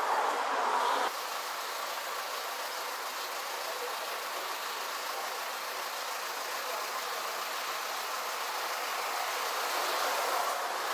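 Steady outdoor street ambience: an even hiss like distant traffic, which drops slightly and changes character about a second in.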